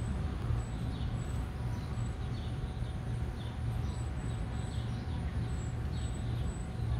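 Steady low background rumble with faint, short high chirps recurring about every second.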